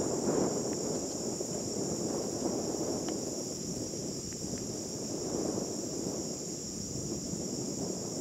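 Steady, high-pitched insect chorus droning without a break over a low, shifting rushing noise.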